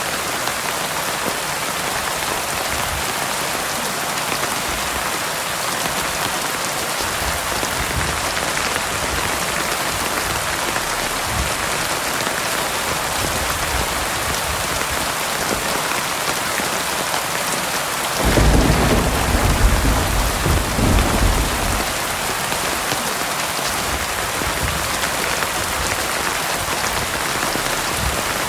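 Heavy rain falling steadily, a dense even hiss. About two-thirds of the way through, a sudden loud clap of thunder rumbles for about three seconds, with fainter low rumbles of thunder earlier.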